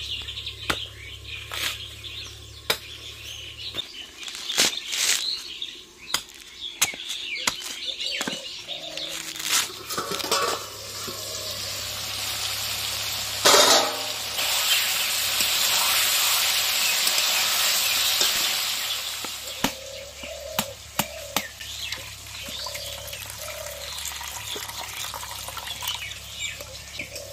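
A machete chopping the husk of a green coconut: many sharp strikes in the first ten seconds or so. Then chicken and potato pieces sizzling in an aluminium kadai, a steady hiss from about twelve seconds in. Near the end, coconut water trickling from the opened nut into a steel cup.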